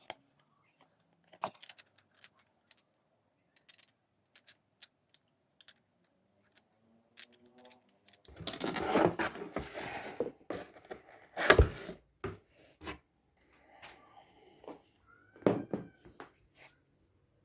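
Handling noises: scattered light clicks, a few seconds of rustling and scraping, and one sharp knock about halfway through. No motor is running.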